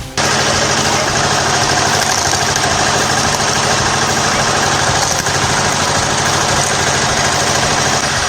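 Firewood processor's engine running steadily at a constant speed. It cuts in abruptly just after the start.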